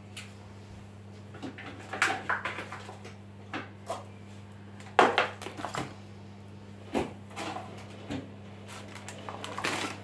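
Food containers, jars and produce being lifted out of a refrigerator and set down, a scatter of short knocks and clicks over a steady low hum; the loudest knock comes about halfway through.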